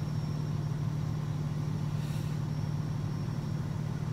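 Steady low rumble of an idling fire truck engine.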